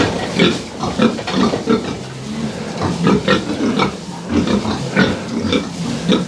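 Pigs grunting close to the microphone: a quick run of short grunts, about two a second.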